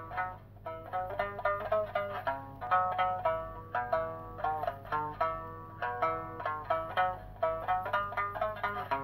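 Okinawan sanshin, the three-stringed snakeskin lute, played solo: a melody of single plucked notes at a moderate, even pace, each note ringing briefly and dying away.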